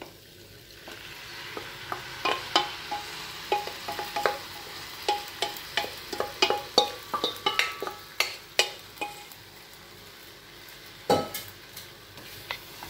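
Diced raw mango tipped from a steel bowl into a hot pan of spiced oil, sizzling. A wooden spatula scrapes and knocks against the bowl and pan in a run of quick clicks, with one louder knock near the end as the mango is stirred in.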